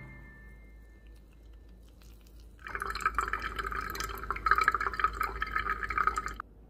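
Brewed pour-over coffee trickling from the dripper into a glass server, a thin stream splashing and dripping into the liquid. It starts about two and a half seconds in and cuts off suddenly near the end.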